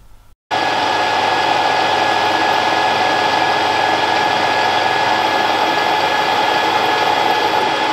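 Warco WM180 mini lathe running steadily with a continuous whine, turning bar stock while a centre drill in the tailstock drill chuck drills a centre hole in its end. The sound starts abruptly about half a second in.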